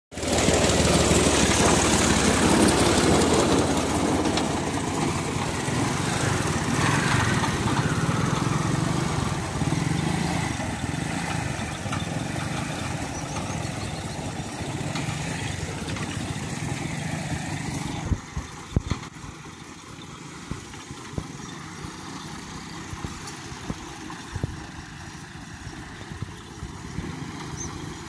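A vehicle engine running steadily at a low pitch, loud at first, then dropping away about eighteen seconds in, leaving quieter outdoor sound with scattered knocks.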